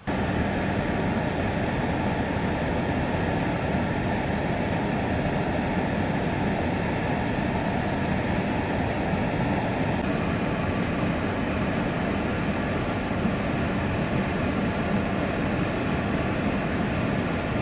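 Steady vehicle running noise, engine hum mixed with road noise, unchanging throughout.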